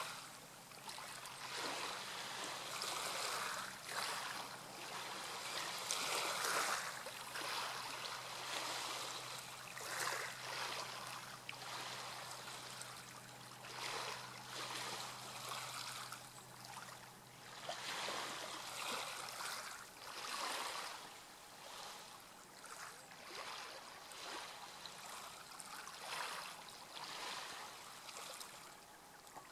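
Seawater lapping gently, an uneven splashing wash that swells and fades every second or so. A faint steady low hum runs beneath it and stops about two-thirds of the way through.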